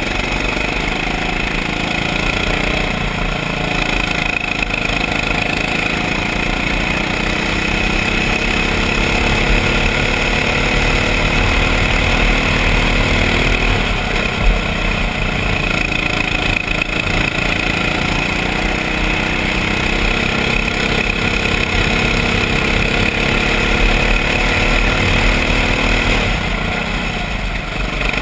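Rental go-kart's small engine running under full throttle, heard from the driver's seat, its note climbing slowly on the straights and dropping away about halfway through and again near the end as the kart slows for corners.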